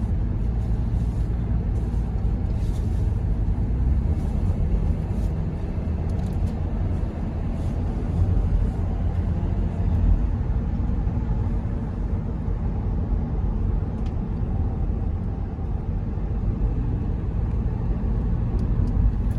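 Steady low rumble of a road vehicle running.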